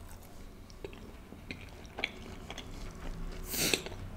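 Close-miked chewing of a mouthful of butter chicken and naan, with soft, wet mouth clicks scattered through it. A brief louder noise comes about three and a half seconds in.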